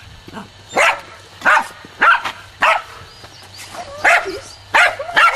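A dog barking, about seven short barks spaced roughly half a second apart, with a pause of about a second midway.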